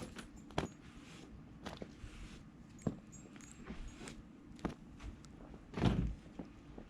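Irregular knocks and thumps over a faint steady background, the loudest a heavier thump about six seconds in.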